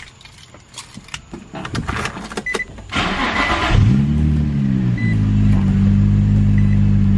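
A few clicks, then a brief crank, and the Infiniti G35's V6 catches about four seconds in. Its revs flare up and drop back to a steady, even idle. It is running smoothly again now that new spark plugs and ignition coils have cured the misfire.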